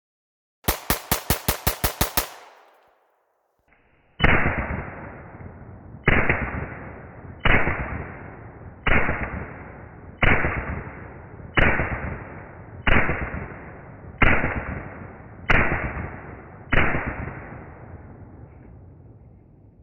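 Ruger Mark IV .22 LR pistol firing: first a fast string of about ten shots in under two seconds, then after a short pause about ten slower single shots spaced over a second apart, each with a long echoing decay.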